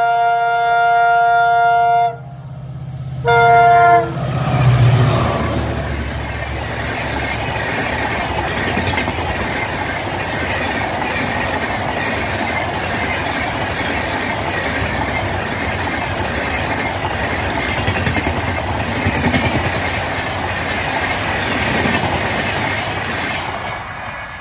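Twin Alco WDM-3A diesel locomotives sounding their horn, a long blast and then a short one, then passing close with a burst of low engine noise about four seconds in. The train's passenger coaches follow with a steady rumble and clickety-clack of wheels over the rails for about twenty seconds, fading near the end as the last coach draws away.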